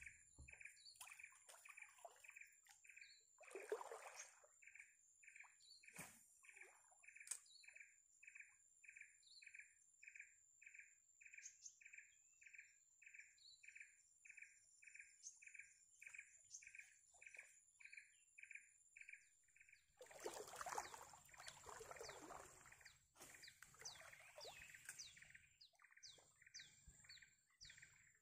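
Faint bird calls: one bird repeats a short note about twice a second, over a thin, steady high-pitched whine. About twenty seconds in there is a rustle lasting a few seconds, then quicker, higher chirps.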